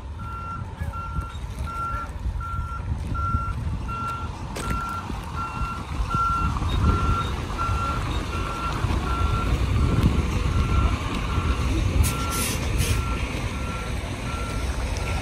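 Backup alarm of a reversing tractor-trailer, a single-pitched beep repeating rapidly and evenly, over a low steady rumble. A brief high hiss sounds about twelve seconds in.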